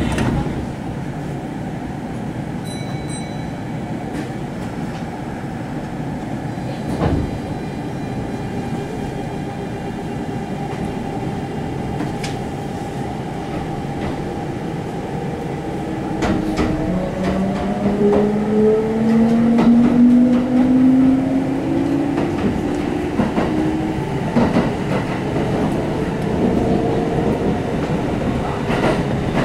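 Kintetsu 1259 series electric train heard aboard the motor car, first with a steady hum while standing. About halfway through it starts to pull away: the Hitachi GTO VVVF inverter whines in several tones that rise in pitch together, and the running noise grows louder as it accelerates.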